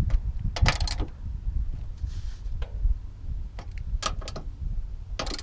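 Ratchet and 13 mm socket clicking in a few short bursts as the strut tower brace nuts are snugged down.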